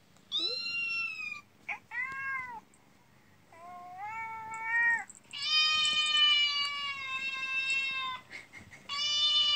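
Kitten meowing through a tablet's speaker: five high mews with quiet gaps between them, the fourth drawn out for about three seconds.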